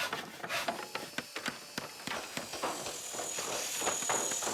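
Cartoon sound effects: a busy, irregular run of light clicks and knocks, several a second, with a faint high steady tone coming in about halfway through.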